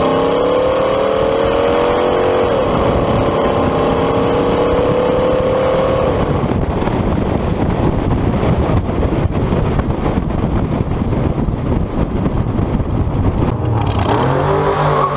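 Hot rod engine in a 1929 Ford Model A sedan, heard from a camera mounted on the car, accelerating with its pitch rising. About two and a half seconds in the pitch drops at a gear change, then climbs again. About six seconds in the engine note gives way to steady wind and road noise, and near the end a lower engine note comes back as the car slows.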